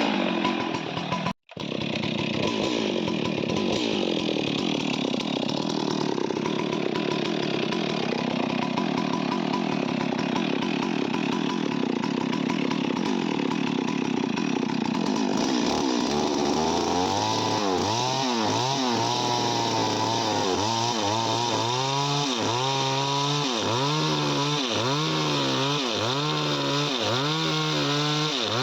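Chainsaw running and cutting through wood. It drops out for an instant just over a second in. From about halfway, the engine's pitch dips and recovers roughly once a second as it works through the cut.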